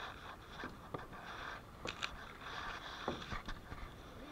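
Kayak paddle blades dipping into and pulling through the water, making irregular short splashes with water swishing against the plastic hull between strokes.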